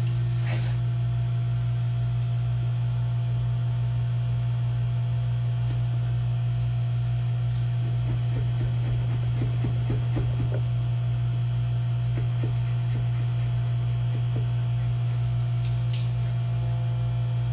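A steady low electrical hum, with faint, irregular scratching strokes in the middle as a sticker is scraped off a cabinet panel.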